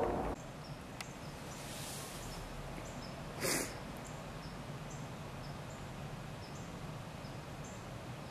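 The last of a diesel commuter locomotive's horn cuts off, leaving quiet outdoor ambience with a faint steady hum. There is one short burst of noise about three and a half seconds in, and faint high ticks repeat about twice a second in the second half.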